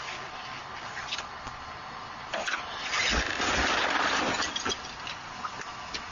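Crashed car being backed off a bollard and wheel stop: a rush of engine and scraping noise with two heavy low thumps about three seconds in, among scattered small clicks.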